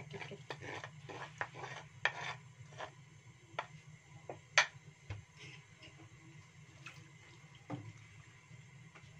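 Kitchen clatter of a pan lid and a spatula against a wok while the greens in it are stirred: scattered clinks and knocks, the sharpest about halfway through, over a low steady hum.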